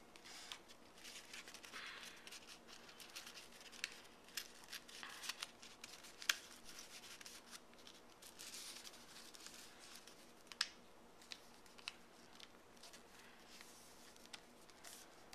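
A square sheet of origami paper being folded and creased by hand: faint rustling and crinkling with scattered crisp clicks, the sharpest about six seconds in.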